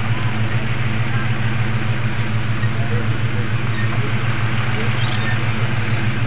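Steady drone of a vehicle engine with road noise, heard from inside the moving vehicle: a constant low hum that neither rises nor falls in pitch.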